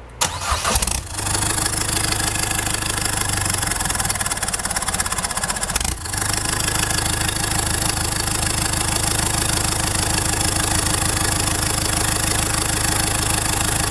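Peugeot Partner's 1.6 HDi turbo-diesel engine starting and settling into a steady idle about a second in. It runs with the catalytic converter removed, so the exhaust comes straight out of the turbocharger's open outlet.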